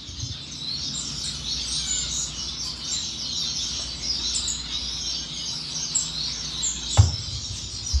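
A chorus of many small caged finches chirping together, a dense, continuous twittering of short high calls. About seven seconds in there is a single soft knock.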